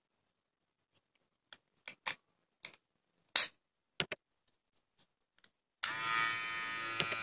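A few sharp plastic clicks as a guide comb is handled and snapped onto a cordless hair trimmer, then, about six seconds in, the trimmer is switched on and runs with a steady electric buzz.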